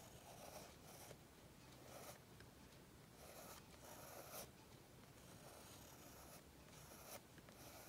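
Faint scratching of a 0.3 mm mechanical pencil lead on drawing paper, a series of short sketching strokes about one a second.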